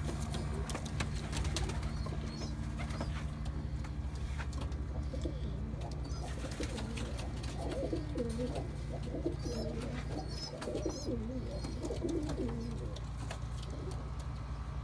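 Domestic pigeons cooing, a run of low warbling coos from about five seconds in until near the end, over a steady low hum.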